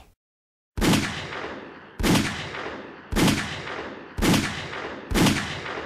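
Five 9mm pistol shots, about a second apart, firing HPR 115-grain jacketed hollow points into denim-covered ballistic gel. Each crack rings out and fades over about a second.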